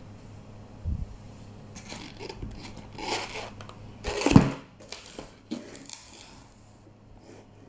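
A metal baking tray being handled and shifted on a wooden counter: scraping and rustling with a few knocks, the loudest a thump about four seconds in.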